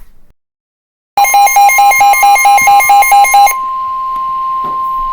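NOAA Weather Radio's steady 1050 Hz warning alert tone, starting about a second in. For its first two seconds or so a loud, fast beeping alarm of about four to five beeps a second sounds over it, then the steady tone carries on alone. It signals that a new warning broadcast is about to follow.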